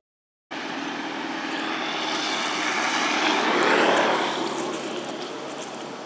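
A passing engine: a steady droning hum that begins after a half-second gap, grows louder to a peak about four seconds in, then fades.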